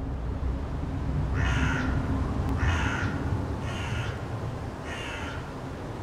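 A bird giving four harsh calls, each about half a second long and about a second apart, over a low steady rumble.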